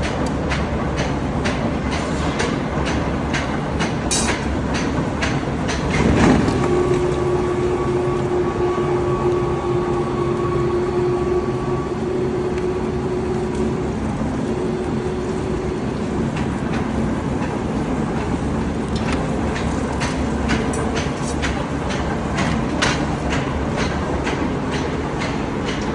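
Pneumatic forging air hammer striking in a quick rhythm, about three blows a second, over a steady low machine rumble. The blows stop for about ten seconds after the first quarter, when a steady hum is heard, and start again in the last third.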